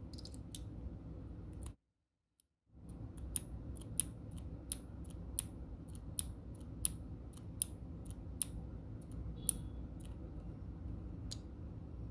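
Individual keys pressed on a mechanical keyboard fitted with Macintosh-style keycaps: sharp clicks one at a time, about one every 0.7 seconds, over a low steady background noise. The sound cuts out completely for about a second near the start.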